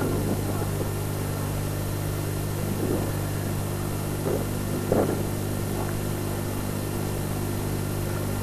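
A steady low hum with a few short louder sounds over it, the loudest about five seconds in.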